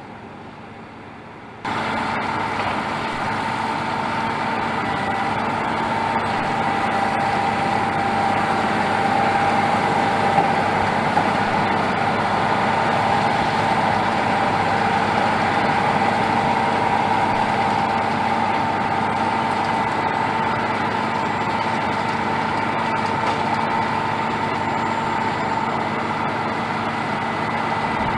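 Tractor engine running steadily under light load, with a steady whine over the engine note; it comes in abruptly about two seconds in.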